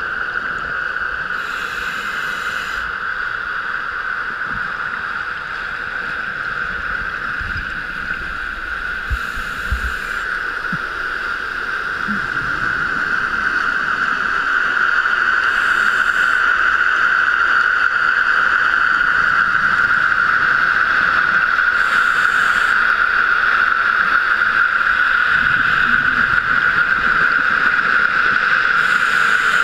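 Scuba diver breathing underwater, heard through a GoPro housing: a short rush of exhaled bubbles from the regulator about every six seconds, five times, over a steady muffled hiss that grows a little louder halfway through.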